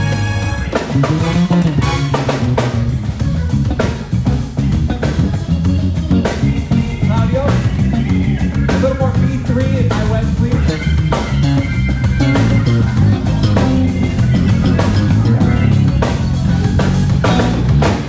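Live band playing a groove: electric guitar over a drum kit and bass, with regular snare and kick hits and a moving bass line.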